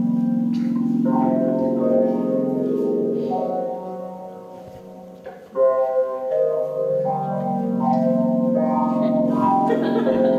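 Instrumental stage music: held keyboard chords over a low wavering drone. It fades down about four seconds in and comes back abruptly at about five and a half seconds.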